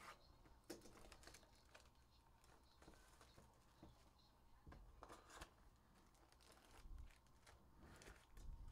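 Faint handling sounds of a cardboard trading-card hobby box being opened and its foil packs taken out: scattered soft clicks, taps and brief rustles at irregular intervals.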